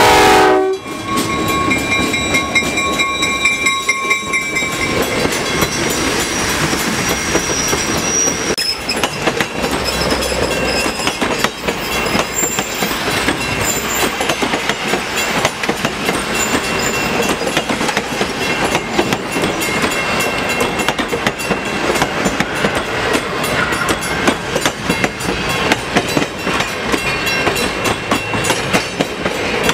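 End of a horn blast from an EMD MRS-1 diesel locomotive, cutting off just under a second in. Then the passenger train rolls past close by: a steady rumble of wheels on rail with rapid clicks over the rail joints.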